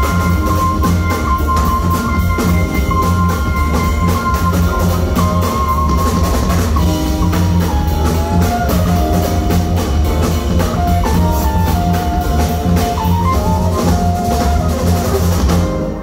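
Live band of saxophone, electric guitar, drum kit, keyboard and bass playing, with steady drums under a held high note, then a moving melody line from about halfway. The music stops abruptly right at the end.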